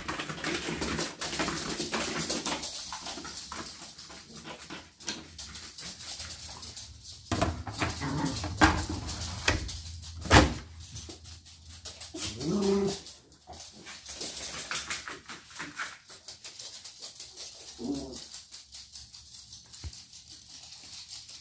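Small dogs moving about, with the plastic flap and cover panel of a pet door clacking and knocking; the hardest knock comes about ten seconds in. A dog whines briefly about twelve seconds in and again near eighteen seconds.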